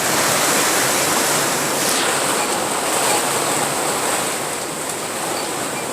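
Steady, even rushing noise with a faint high hiss, unchanged throughout.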